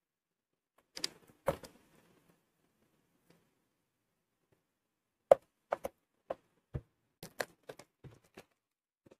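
A cardboard retail box for a KDM Eco 180 neckband earphone being opened by hand: a few sharp clicks and crackles about a second in, then a quicker run of clicks and snaps from about five seconds in, the first of them the loudest.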